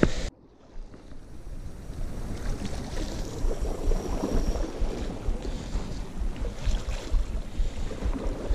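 Wind buffeting the camera microphone in gusts, over the sea washing against the rocks below. The sound cuts out abruptly just after the start and then returns.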